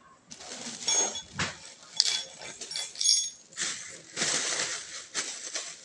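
Rustling and handling noise from bicycle parts and packaging being moved about, with a few light metallic clinks in the first half.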